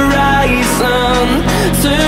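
Background pop music: steady bass notes under a bending melodic line, with a light high-pitched hit about once a second.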